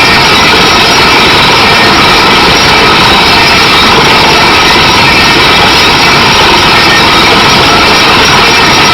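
Kaishan KW20 well-drilling rig running, a loud, steady machine noise that does not change.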